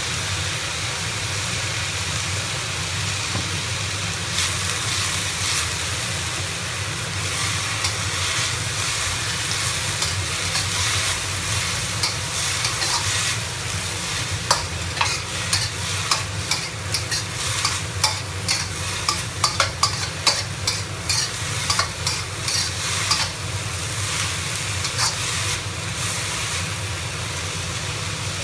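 Shredded potatoes sizzling in oil in a hot wok as they are stir-fried. From about halfway on, a metal spatula scrapes and clacks against the wok in quick repeated strokes.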